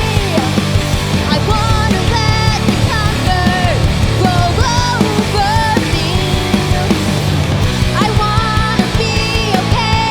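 Punk/indie rock band playing live: drums keeping a driving, steady beat under electric guitars and bass, with a melodic line that bends in pitch over the top.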